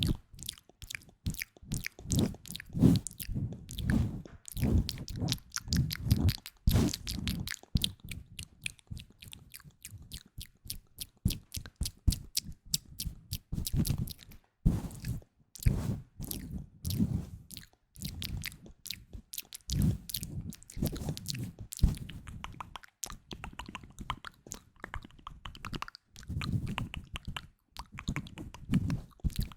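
Close-miked ASMR trigger sounds: a dense run of crisp clicks and taps over soft, rhythmic low thumps.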